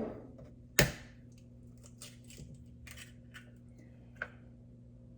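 An egg being cracked on the rim of a mixing bowl: one sharp knock about a second in, followed by faint small clicks and taps.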